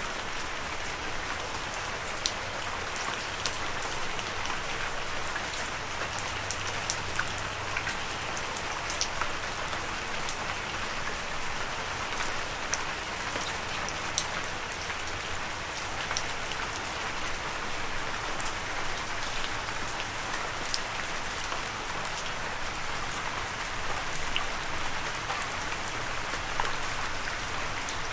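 Steady rain falling, a constant hiss with many distinct drops ticking sharply on a hard surface.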